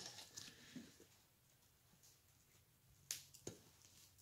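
A few short, sharp clicks of a screwdriver prying at the cover clips on a 1977 MGB seat frame, with two close together about three seconds in, against near silence.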